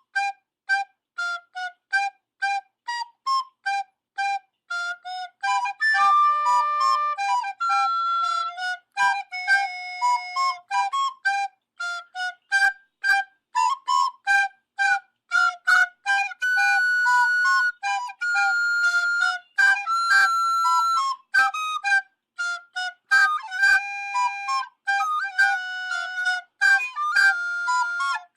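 Music: a bouncy tune played on a single high, whistly instrument, mostly quick short staccato notes at a few per second, broken now and then by longer held notes.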